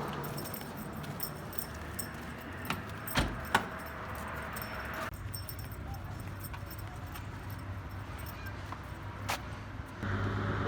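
Small metal pieces jingling and clinking over a steady low hum, with a few sharp knocks, two of them close together about three seconds in and another near the end.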